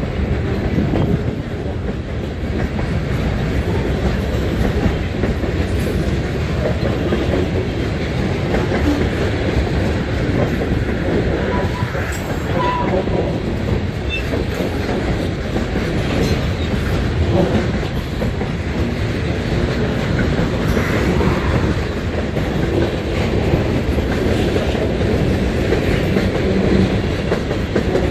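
Freight train cars rolling past close by: a steady rumble of steel wheels on the rails with the clickety-clack of trucks passing over rail joints.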